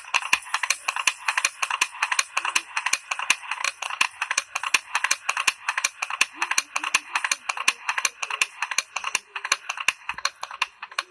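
A recording played back through the Olympus VN-7200 voice recorder's small built-in speaker: a fast, even clatter of sharp clicks, about six a second, thin and lacking low end.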